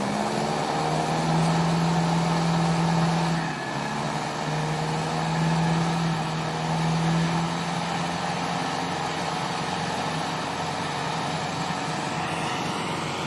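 Diesel tractor engine running at steady speed. Its note swells twice in the first seven seconds, then holds a little quieter.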